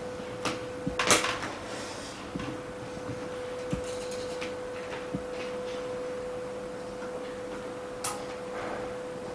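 Leftover glue being worked off a Samsung S8 LCD panel by hand: scattered light clicks and scrapes, the loudest about a second in, over a steady hum.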